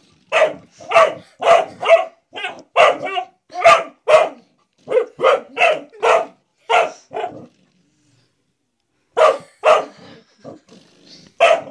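Puppy barking repeatedly at a spring door stop in quick sharp barks, about two a second, which the owner thinks he sees as a threat. The barking pauses for about a second and a half past the middle, then starts again.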